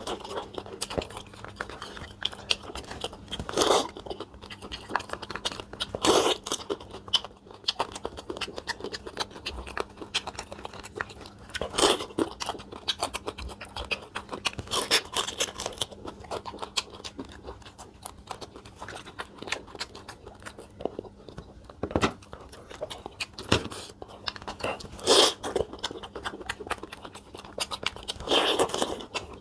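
Eating boiled crab: crab shell and meat crunching and cracking between the teeth, with chewing in between and louder crunches every few seconds.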